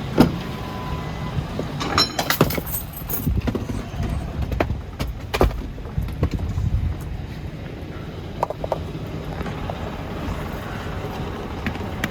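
Ford Expedition's 4.6 V8 running with a steady low rumble, with scattered clicks and knocks over it.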